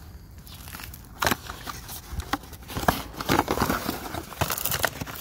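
Handling of a small cardboard bulb box and its plastic wrapping: crinkling and rustling with several sharp clicks and taps, thickest in the second half, as an LED bulb is taken out of its packaging.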